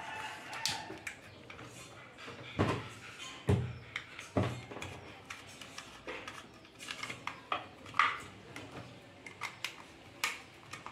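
Handling noises from a water purifier's plastic power-supply box and wiring being held and moved in its plastic housing: scattered light clicks and taps, with three duller knocks in the first half. The booster pump is not running.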